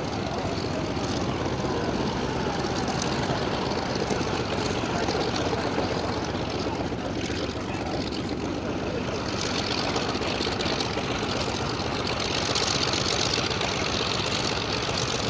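Grumman F8F Bearcat's Pratt & Whitney R-2800 radial engine running steadily at idle on the ground, its propeller turning.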